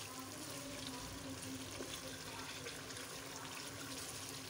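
Chicken karahi masala sizzling and bubbling steadily in oil in a wok while being stirred with a wooden spoon, being fried down (bhuna) at the final stage of cooking.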